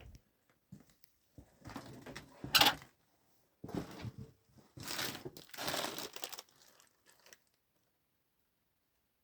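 Rustling and crinkling noises in several bursts, the sharpest about two and a half seconds in, stopping after about seven seconds.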